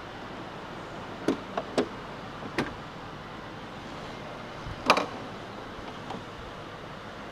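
Metal clicks and knocks from handling a Matco tool box and its tools: a quick run of sharp clicks in the first three seconds and one louder clunk about five seconds in, over a steady background hiss.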